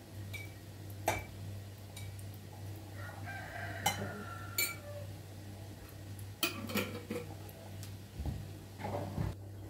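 A rooster crowing once, a call of about two seconds starting about three seconds in, over scattered clinks and knocks of kitchenware as tea is put on to brew.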